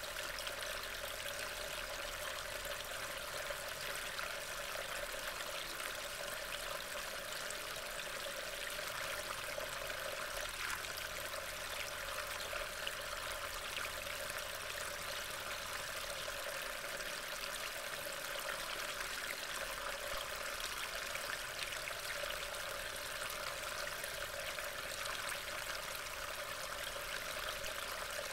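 Steady rain hiss picked up by a trail camera's microphone, with faint scattered drop ticks.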